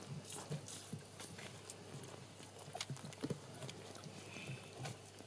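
A Shetland sheepdog mother licking her newborn puppy: irregular wet licks and snuffles.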